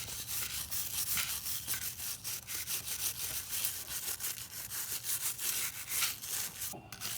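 Wire brush scrubbing the cleaner-sprayed mounting bolts of a truck's neutral safety switch: quick, repeated scratchy back-and-forth strokes that stop near the end.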